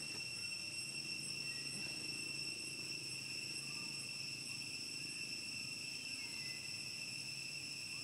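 Insects droning: a steady, high-pitched, unbroken whine.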